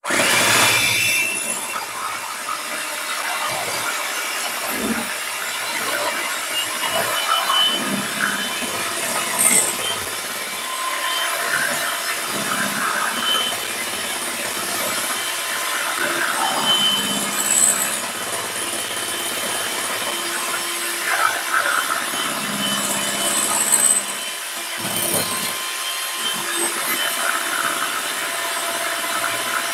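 Russell Hobbs electric hand mixer switched on and running steadily, its twin beaters whisking eggs, oil and sugar in a glass bowl until pale and fluffy, with occasional knocks and scrapes of the beaters against the glass.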